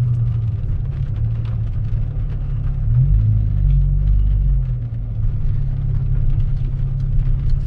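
Low, steady rumble of a car's engine and body heard from inside the cabin, with the engine running.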